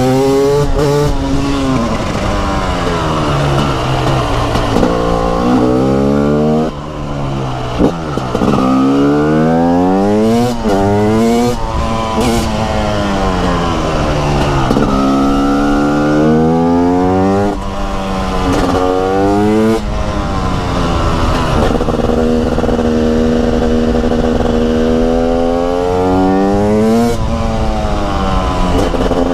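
TM SMR 300 supermoto's 300 cc two-stroke single-cylinder engine under way, its note climbing as it revs up and falling off again over and over as the bike accelerates and slows through the bends.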